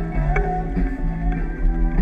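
Instrumental background music with a bass line stepping between notes and a held, slightly bending melody.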